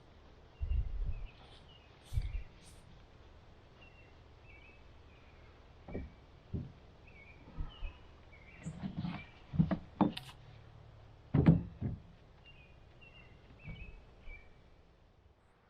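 Birds chirping in short repeated calls, with a few scattered knocks and thumps, the loudest in a cluster a little past the middle.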